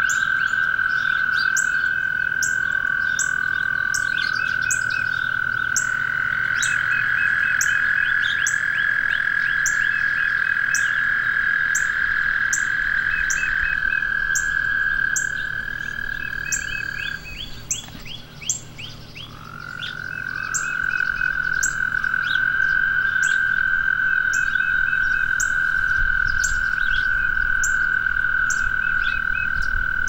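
Chorus of frogs calling in a marsh. Long sustained trills hold one steady pitch, stop for a couple of seconds a bit past halfway, then start up again. Short chirps and regular high ticks, about two a second, run alongside.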